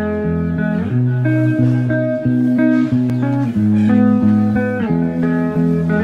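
Instrumental background music led by guitar, with held notes and chords changing about every second.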